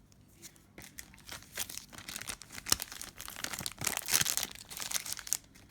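Sealed Upper Deck hockey card pack wrapper crinkling and tearing open by hand, a dense run of crackles starting about a second in and loudest about four seconds in.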